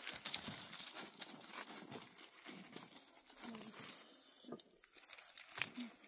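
Dry crinkling and rustling with many small sharp crackles, as something is handled.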